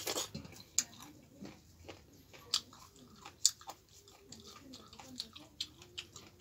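Close-miked mukbang eating: wet chewing with sharp mouth clicks and smacks, from someone eating finger-millet dhido with chicken gizzard curry.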